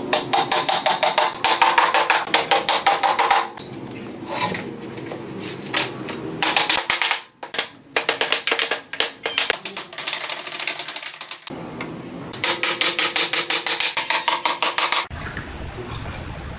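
Claw hammer driving nails into pallet wood: fast runs of sharp knocks, several a second, broken by a few short pauses. Near the end the knocking stops and a low rumble takes over.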